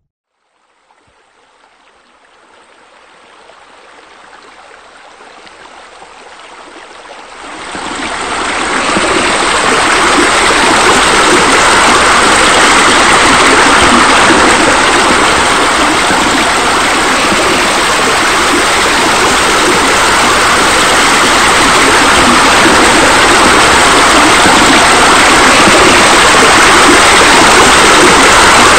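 Running, splashing water from the pool's deck jets and bubbler, a steady rush that fades in from near silence, jumps louder about seven seconds in, and then holds steady.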